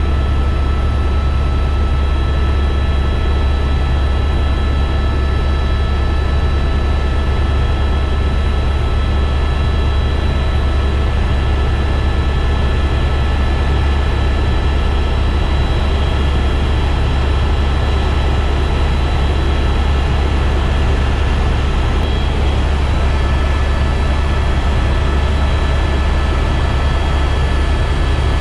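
Helicopter cabin noise in steady cruise flight: a loud, deep, unbroken rotor and engine drone with a steady high whine of several tones above it.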